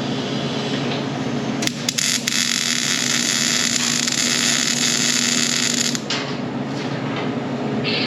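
Electric welder laying a weld bead: a steady crackling hiss that starts with a few sharp clicks about two seconds in, runs for about four seconds and cuts off abruptly, over a steady background hum.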